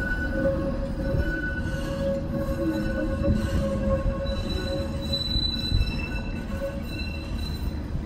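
Bombardier Flexity Outlook streetcar's steel wheels squealing on a tight track curve, several steady high tones that shift in pitch partway through, over the low rumble of the car rolling.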